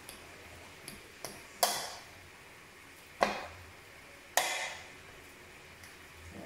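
Utensils knocking against a plastic mixing bowl while minced beef is being mixed: a few light taps, then three sharper knocks spread over a few seconds.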